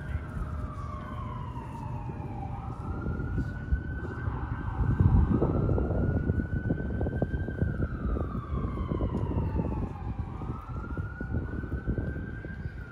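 Emergency vehicle siren wailing, its pitch climbing and falling slowly over several seconds per cycle, over city street traffic noise that swells about five seconds in.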